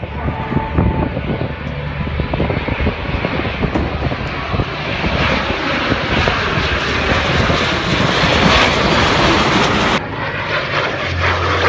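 Jet engine noise from Blue Impulse Kawasaki T-4 jet trainers flying overhead in a four-ship formation. The noise grows louder and brighter from about five seconds in, then breaks off at an edit about ten seconds in, where a single passing jet is heard.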